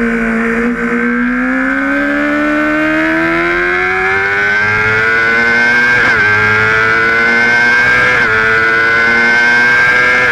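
Onboard sound of a Honda sport bike's engine at full track pace, revs climbing steadily as it drives out of a corner, with two quick upshifts about six and eight seconds in.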